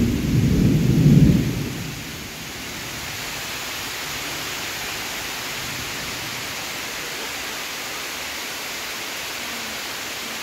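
Thunder rumbling loudly for about the first two seconds, then steady rain hissing on the river and the leaves of the trees.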